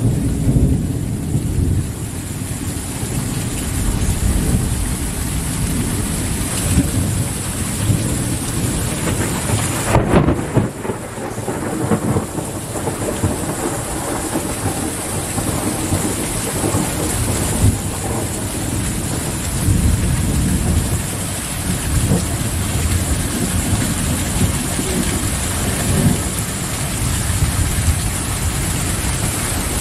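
Thunderstorm: steady rain falling, with low thunder rumbling on and off.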